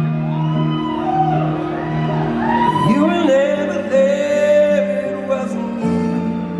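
Live band playing a slow song: sustained chords with a wordless, gliding vocal line over them, and the chords change near the end.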